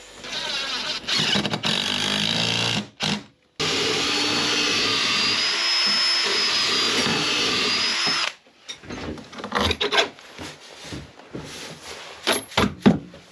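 Cordless drill-driver working screws in the timber frame of a wooden boat's hull, in two long runs; the motor's whine rises and falls in the second. After about eight seconds it gives way to scattered clicks and knocks.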